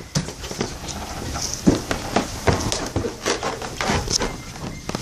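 Irregular rustling and knocking of a phone's microphone rubbing against clothing as the phone is carried about.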